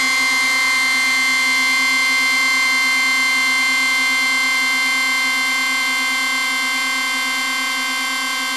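Electronic dance music breakdown: a single buzzy synthesizer chord held steady with no drums, easing slightly in level toward the end.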